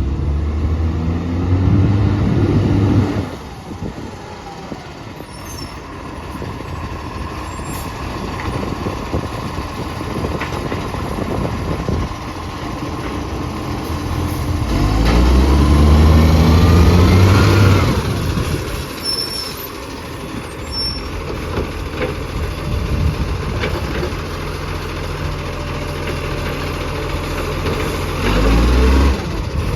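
Recycling garbage truck's diesel engine with an exhaust leak, running with rapid ticking and revving up three times: at the start, about halfway through and near the end.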